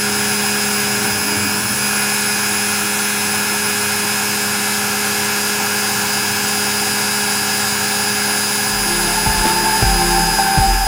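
Makita trim router used as the CNC spindle, running at a steady speed: a constant whine with an even hiss. Near the end, other lower sounds join in.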